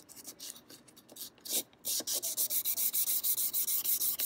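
Sandpaper on a rubber block rubbing back and forth on the steel blade of a straight razor, scrubbing grime off the blade up against the spine. A few scattered strokes, then from about two seconds in a fast, steady run of short strokes.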